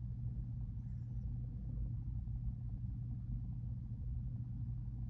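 Freight train's steady low rumble, muffled, with a constant deep hum underneath.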